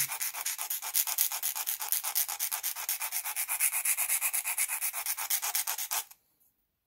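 Flat file rasping back and forth across the end of a piece of bassoon reed cane, bevelling it at an angle. The strokes are rapid and even, several a second, and stop abruptly about six seconds in.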